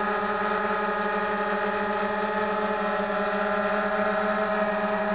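Autel X-Star Premium quadcopter hovering, its propellers giving a steady hum with a fixed pitch and several overtones.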